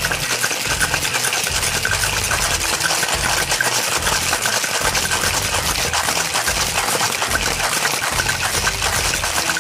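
Ice cubes rattling hard inside a stainless steel cocktail shaker being shaken with the drink's liquid, a dense, rapid, continuous clatter of ice against metal.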